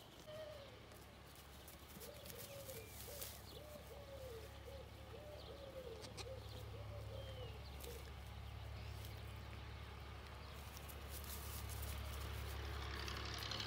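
A dove or pigeon cooing, a run of about nine soft rising-and-falling coos that stops a little past halfway, with a few short high chirps from other small birds. Under it runs a steady low rumble that grows louder near the end.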